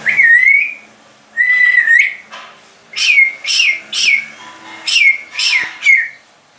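Grey parrot whistling loudly: two longer whistles, then six short notes that each drop sharply in pitch.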